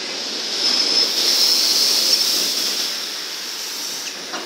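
ED4M suburban electric train hissing at the platform. The loud hiss swells about a second in and eases off by about three seconds.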